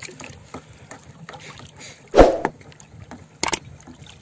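Low, steady sea and wind noise around a small outrigger boat, broken by one loud thump about two seconds in and a few sharp clicks near the end.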